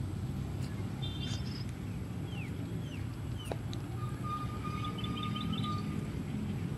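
Outdoor ambience: a steady low rumble, with a few short falling bird chirps in the middle and a thin held whistling note followed by a quick flurry of high bird notes a little later.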